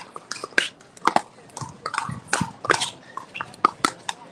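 Pickleball rally: more than a dozen sharp, irregular pops in about four seconds as paddles strike the hard plastic ball and the ball bounces on the court.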